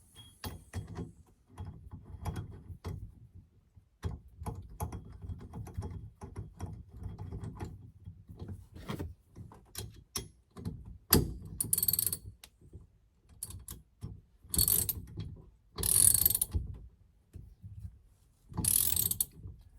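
Hand ratchet wrench clicking as bolts are run in and tightened, in short spells of ratcheting with loud rasping bursts of about a second each, amid light clicks and knocks of tools and parts.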